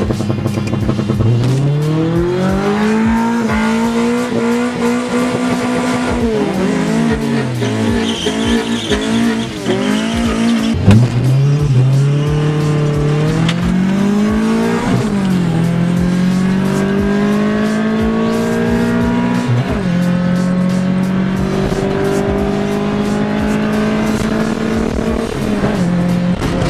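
Car engine revving hard and pulling through the gears: its pitch climbs, holds, drops and climbs again several times, with some tire squeal.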